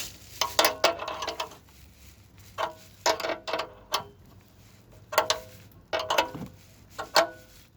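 Hand tools working on exhaust bracket hardware: short bursts of metallic clicking and ratcheting with a ringing metal tone, about seven bursts separated by brief pauses.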